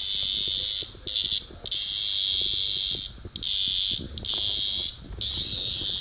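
Large cicada held in a small dog's mouth, giving its loud, high-pitched distress buzz in stretches of about a second broken by short pauses. Low scuffling knocks from the dog run underneath.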